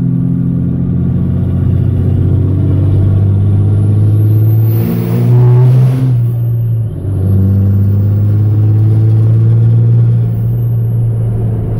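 Dodge Ram's 5.9 L Cummins turbo diesel heard from inside the cab, pulling steadily on the road. About five seconds in it rises in pitch and gets louder, then drops back about seven seconds in before carrying on steadily.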